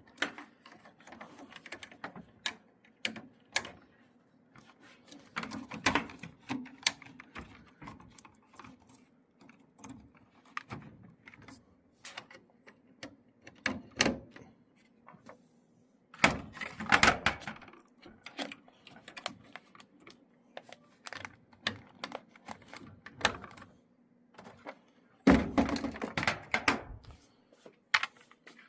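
Handling sounds from reassembling a dryer's control panel: scattered clicks, taps and thunks of plastic and metal parts, wires and screws being fitted, with a few busier stretches of rattling. A faint low hum runs beneath.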